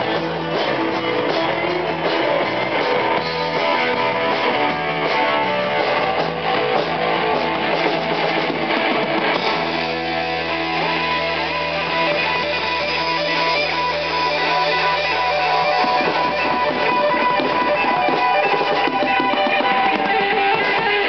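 A live band playing loud rock music: strummed guitar over a drum kit.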